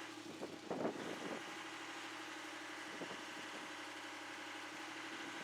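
Engine idling steadily, with a few brief louder noises in the first second or so.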